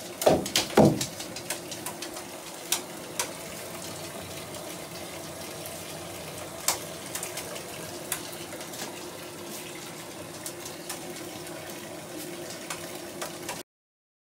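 Two loud splashes as a light-up bath bomb is dropped into a filled bathtub, followed by a steady watery hiss with scattered clicks and small plops. The sound cuts off suddenly near the end.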